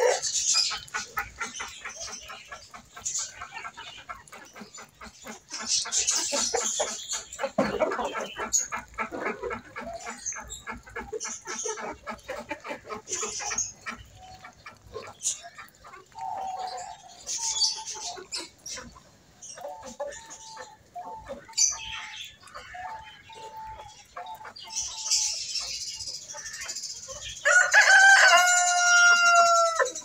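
Chickens clucking with scattered short calls. A rooster crows loudly near the end in one long, pitched call.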